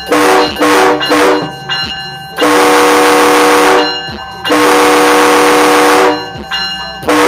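Aftermarket train horn on a 2006 Scion xB, sounded by remote control: a chord of several notes together, given as three short blasts and then two long blasts of about a second and a half each.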